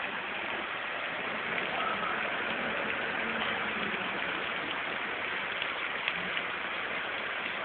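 Steady hiss of rainwater over a flooded courtyard.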